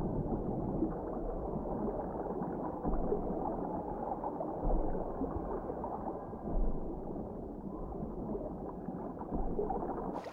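Muffled underwater sound of a swimmer in a pool: a steady bubbling churn of water, with a few dull low thumps.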